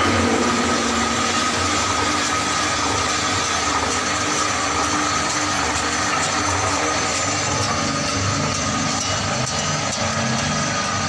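A plastic colour mixer running: the motor spins the blades in the stainless steel drum, churning plastic granules with colourant. It gives a steady mechanical running sound with a constant tone and the hiss of tumbling granules.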